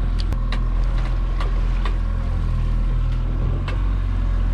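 Boat engine running steadily at low, even speed, with a few short, sharp clicks and knocks scattered over it.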